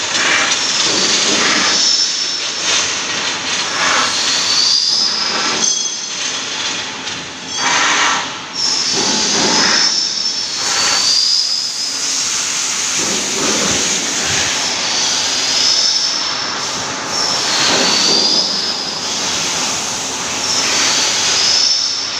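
Loud, continuous factory machinery noise from aluminium metalworking, with a high squealing whine that rises and fades again every few seconds.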